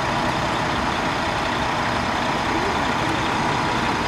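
Steady drone of heavy diesel engines idling, with a constant hum and no change in level.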